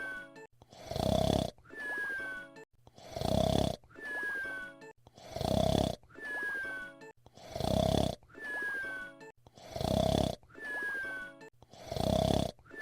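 Cartoon whistle-snoring performed by a voice actor: a loud rasping snore on the in-breath, then a thin whistle that falls slightly in pitch on the out-breath. It repeats evenly about every two seconds.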